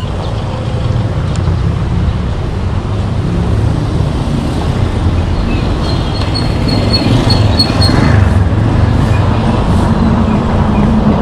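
Low, steady rumble of wind on the microphone and street traffic as an e-bike gets moving, growing louder once the ride is under way.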